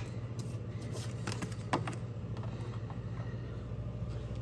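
A few light, scattered taps and clicks as a card is set on a small wire stand on a wooden tabletop, over a steady low hum.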